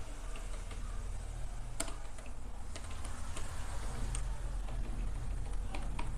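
Computer keyboard keys clicking as a word is typed, then a few scattered mouse clicks as the text is selected and formatted, over a steady low hum.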